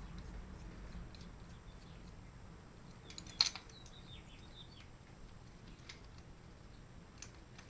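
Faint, scattered small clicks of metal tools and valve-train parts being handled, with one sharper click about three and a half seconds in.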